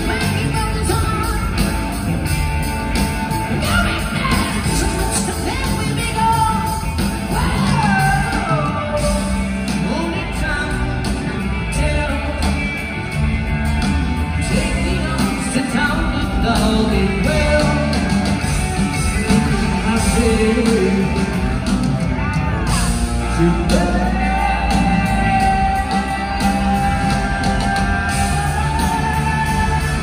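Live rock band playing in an arena, heard from far back in the audience: a male singer sings high over electric guitars and drums, holding one long note over the last several seconds that rises at the end.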